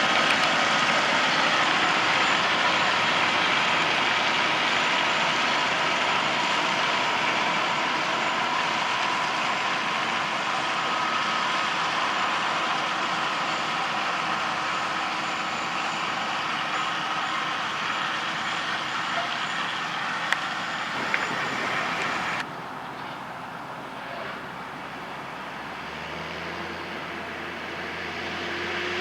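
John Deere 6830 tractor pulling a Grimme SE 150-60 potato harvester: a steady machinery din that slowly fades. About two-thirds of the way through it drops suddenly to a quieter background, and near the end a low engine hum grows louder.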